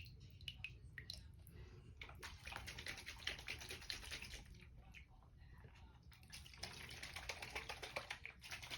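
Faint water sloshing and splashing in a filled sink, in two spells of a few seconds each, over a low steady hum.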